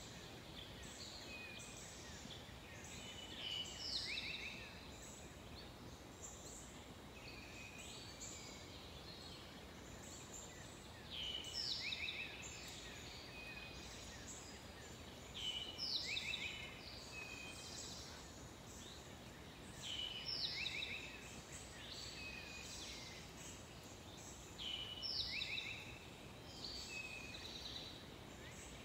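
A songbird sings a short phrase of quick notes sweeping downward, repeated about every four to five seconds. Fainter bird calls come between the phrases, over a steady outdoor hiss.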